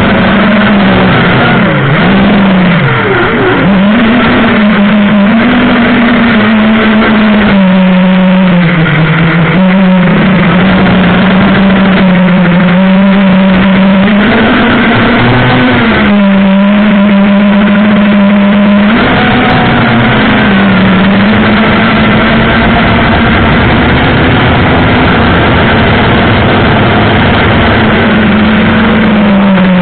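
Emax 2204 2300KV brushless motors of a 250-size FPV quadcopter whining, picked up close by the onboard camera. The pitch rises and falls with the throttle and drops sharply about two to three seconds in.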